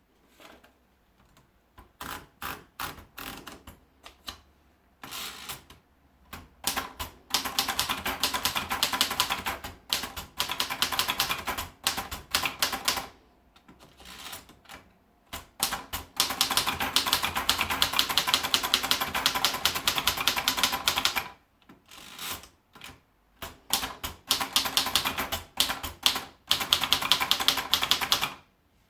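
Hermes Baby manual portable typewriter being typed on: scattered keystrokes at first, then three long runs of fast typing with short pauses between them.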